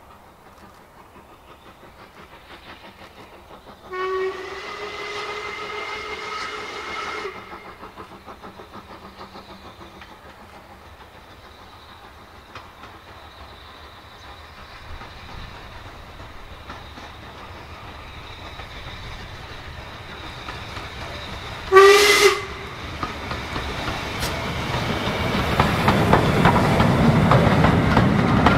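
Steam locomotive 45596 Bahamas, an LMS Jubilee class 4-6-0, approaching and sounding its whistle for about three seconds, then a short sharp blast about two-thirds of the way through. The locomotive and its coaches then run past, and the rumble and clatter of wheels on the rails grow loud near the end.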